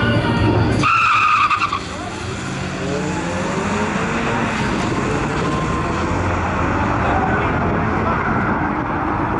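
Two turbocharged Isuzu Impulses launching from a drag strip start line side by side: a brief tyre squeal about a second in, then the engines' pitch climbing as both cars accelerate away down the track.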